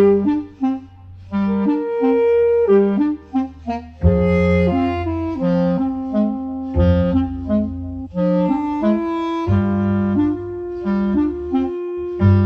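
Background music: a melody of short held notes over low sustained notes, which change every couple of seconds.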